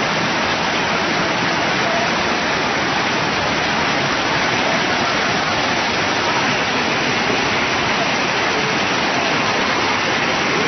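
Muddy floodwater rushing across a road in a fast, dense torrent: a steady, unbroken rush of water.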